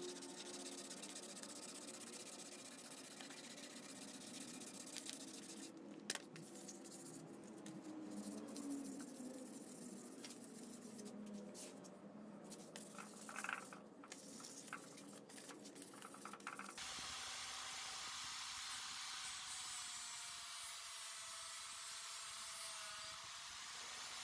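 Sandpaper rubbed by hand along a wooden tool handle, a faint scratching with a couple of light knocks. About two-thirds of the way through it changes abruptly to an angle grinder running with a sanding disc fitted, a steady whine over a hiss.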